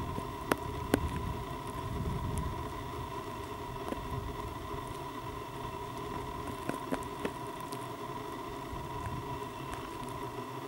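Outdoor ambience of wind rumble on the microphone, with a steady faint high whine and a few sharp clicks, the loudest two about a second in.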